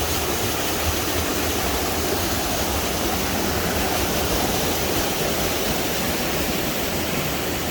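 Stream water rushing steadily under a footbridge, an even, unbroken sound of flowing water.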